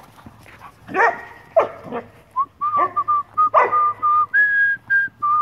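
Airedale terriers playing rough, giving short falling yelps and barks. Over this runs a high, thin tone held in several stretches; it steps up once and wavers near the end.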